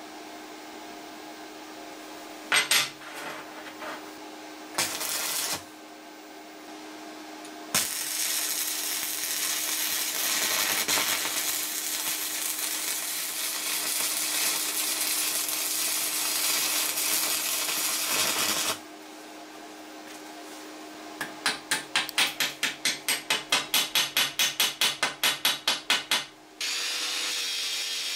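Welding arc from a VEVOR MIG-200D3 multi-process welder joining two steel plates: two short tack welds, then a continuous weld of about eleven seconds, then about twenty short pulses at roughly four a second, over a steady hum. Near the end an angle grinder with a wire cup brush spins up and runs steadily.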